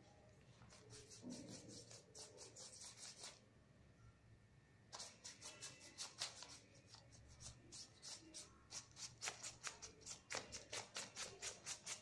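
Paintbrush stroked back and forth on paper, a quick run of brushy scratches that stops for a moment, then resumes faster, about three or four strokes a second near the end.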